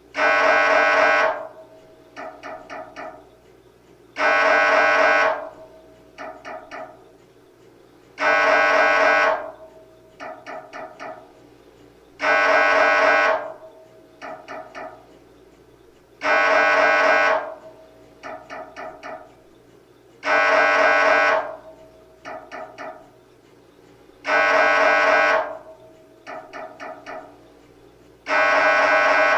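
MRI scanner's gradient coils running a scan sequence: a loud buzzing tone about a second and a half long, then two short sets of softer rapid pulses, the cycle repeating about every four seconds.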